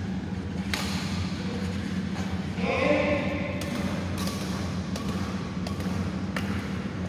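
Badminton rackets striking a shuttlecock in a doubles rally: sharp hits about a second or more apart, over a steady low hum.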